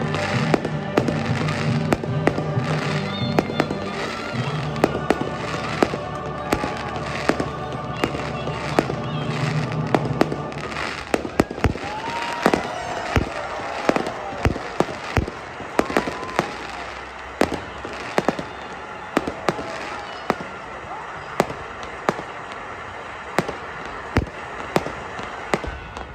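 Fireworks display: a rapid, irregular string of sharp shell bursts and bangs. Music plays underneath for the first ten seconds or so, then stops, leaving the bursts alone.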